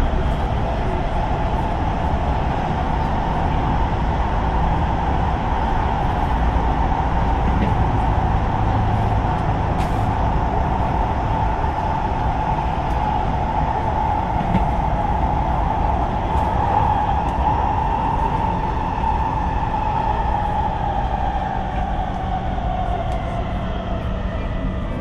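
Kawasaki C151 metro train running through a tunnel, heard inside the car: a steady low rumble of wheels on rail under a whine from the GTO chopper traction equipment. Over the last several seconds the whine falls in pitch as the train slows into the station.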